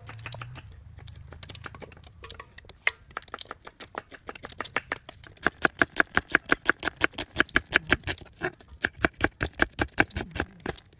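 Kitchen knife slicing red onions on a wooden cutting board: a fast, steady run of chops, about five or six a second, that starts a few seconds in after a few scattered taps and gets louder.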